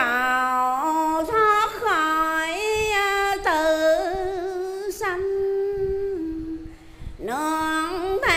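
A woman's solo voice chanting a Hoa Hao Buddhist devotional prayer verse in a slow, sung style, holding long notes and gliding between pitches, with a short breath break about seven seconds in.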